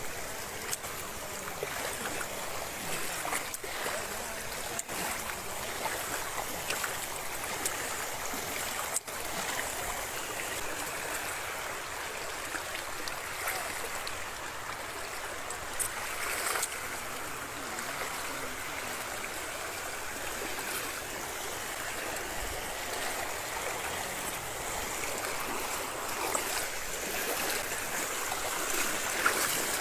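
Fast-flowing floodwater rushing steadily, with a few faint clicks.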